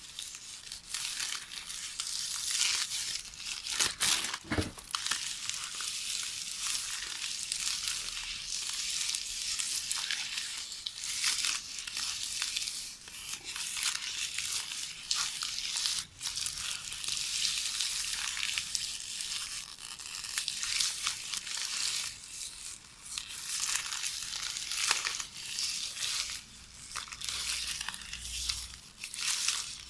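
Magnetic tape from a VHS cassette being knitted by hand: the thin plastic tape rustles and crackles continuously with many small crinkling clicks, and there is one sharper click about four seconds in.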